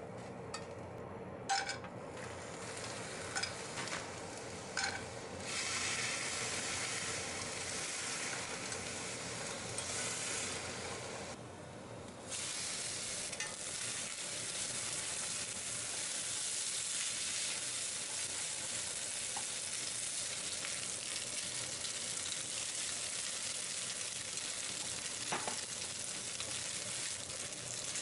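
Egg and then rice noodles sizzling in a frying pan while stirred and tossed with wooden chopsticks, with a few sharp taps of the chopsticks against the pan in the first few seconds. The sizzle grows fuller about five seconds in and briefly drops away near the middle.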